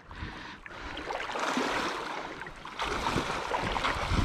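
Water sloshing and splashing around the legs of people wading through a shallow river, growing louder near the end.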